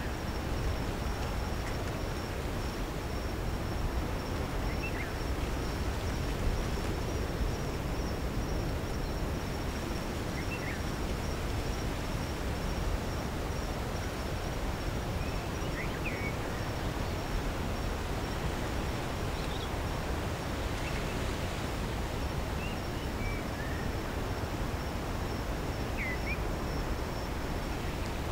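Steady open-air valley ambience: a constant high-pitched insect trill, a few short scattered bird chirps, and a steady low rumbling noise underneath.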